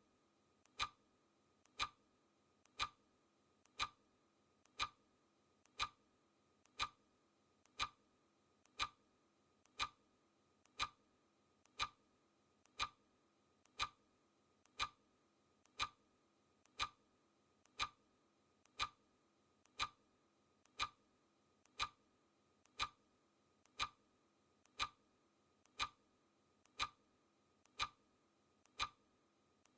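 Countdown timer's clock-tick sound effect, one clear tick each second, each with a faint click just before it.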